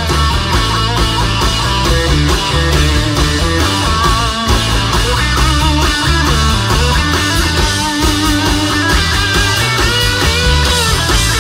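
Live rock band playing an instrumental break: an electric guitar lead with bending notes over bass guitar and drums.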